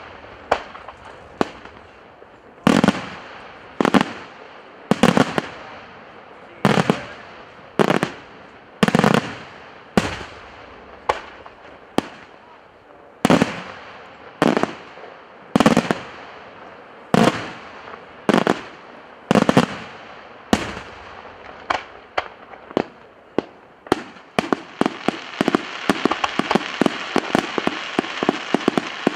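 Daytime fireworks display: aerial shells bursting one after another, roughly once a second, each a sharp loud bang with a trailing echo. About three-quarters of the way through, the bangs give way to a rapid crackling run of many small reports.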